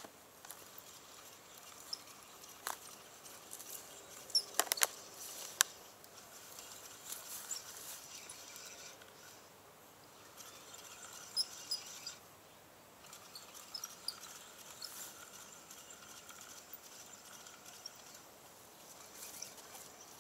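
Quiet riverbank outdoor background with a few sharp clicks and taps from fishing tackle being handled: a spinning reel and rod, with a small burst of clicks about four to five seconds in. Faint high chirps are scattered through it.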